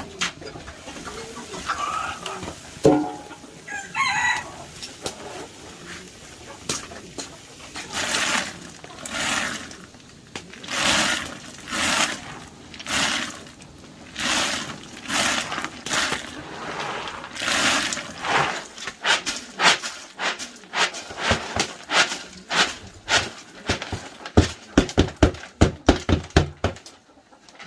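Chickens clucking, over a run of short repeated strokes about one a second that turn into quicker, sharper knocks near the end.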